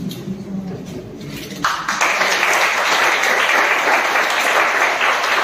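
Audience applauding, a crowd of hands clapping that starts suddenly about a second and a half in and holds steady.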